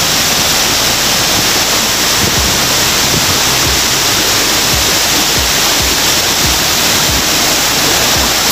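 Steady rushing of water in a rocky mountain creek with a small waterfall, a continuous even hiss, with occasional short low thumps.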